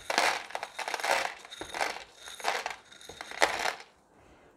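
Fingers scraping and scooping coarse masato (granite grit) off the top of a small terracotta pot: a run of irregular gritty crunching rattles that stops shortly before the end.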